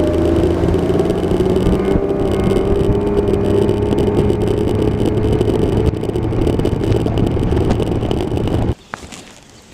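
Boat's outboard motor running steadily under way, with a slight drift in pitch; it stops abruptly near the end.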